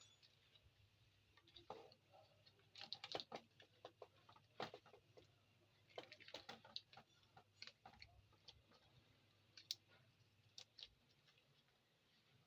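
Faint, irregular light clicks and taps, like small hard objects being handled, with a few sharper clicks in the later part.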